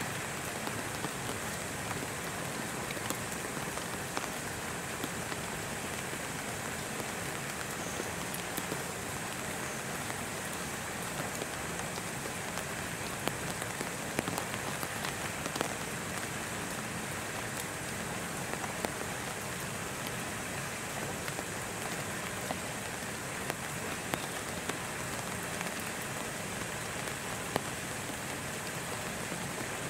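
Steady rain falling on hard surfaces, an even hiss with scattered drip ticks.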